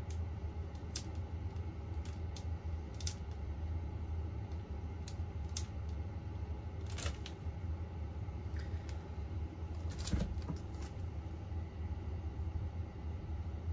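Pages of a paperback manga being turned by hand: a string of short, scattered papery flicks, then a louder knock about ten seconds in as the book is closed and set down on the desk, over a steady low room hum.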